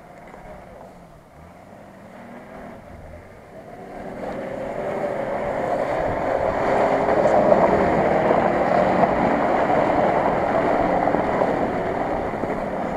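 Nissan Patrol off-roader's engine driving through a boggy grass field, growing louder as it approaches from about four seconds in, loudest past the middle, then easing slightly as it passes.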